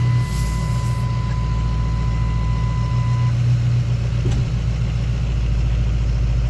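A motor vehicle's engine running steadily at idle, with a thin steady electronic tone over it that stops about three seconds in.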